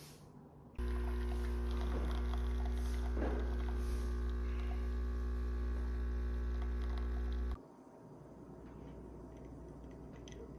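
A loud, steady low electrical hum made of several even tones switches on abruptly about a second in and cuts off abruptly about seven and a half seconds in.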